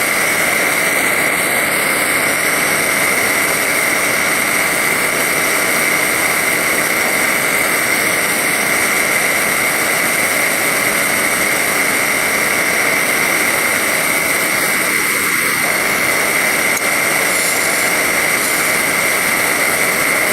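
A machine running steadily, a constant high whine over a loud even hiss, with no change in speed.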